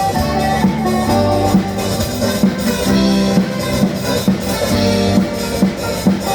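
Loud music with a steady drum beat and pitched bass and guitar notes, played over a loudspeaker system under sound check.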